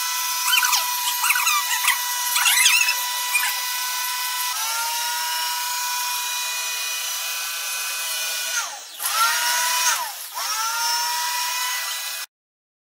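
A steady, high machine-like whine with many overtones, like a small electric motor. It slides in pitch and dips briefly a few times in its second half, with short chirps over it early on, then cuts off abruptly about twelve seconds in.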